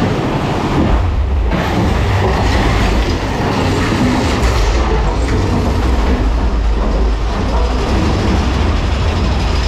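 Mine-train roller coaster cars rolling fast along steel track through a tunnel: a steady heavy rumble with wheel clatter, the higher sounds dropping away briefly about a second in.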